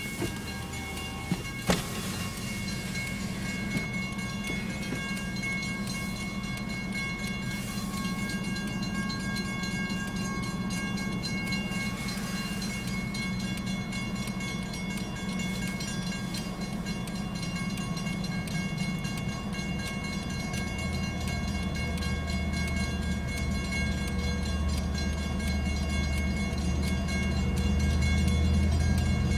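Approaching DE30AC diesel-electric locomotive: its low engine drone comes in about two-thirds of the way through and grows louder toward the end, heard from inside a car. Steady ringing tones and a low hum run underneath, with a sharp knock about two seconds in.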